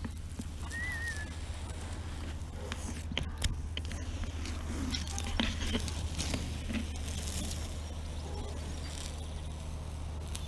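Low-tack masking tape being peeled slowly off painted, sand-gritted steel gunwales: soft, irregular crackling and ticking as the tape comes away, over a steady low hum.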